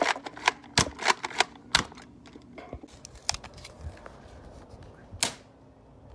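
Small firecrackers going off in a quick, irregular string of sharp pops. The pops thin out after about two seconds, and a last strong pop comes near the end.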